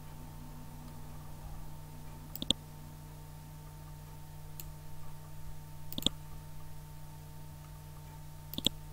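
Computer mouse clicking a few times, some clicks in quick pairs, over a steady low electrical hum.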